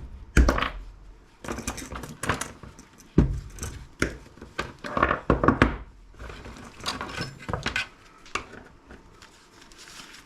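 Scrap parts and wiring being handled and set down: a string of irregular knocks, clatters and rustles, busiest in the first six seconds and thinning out toward the end.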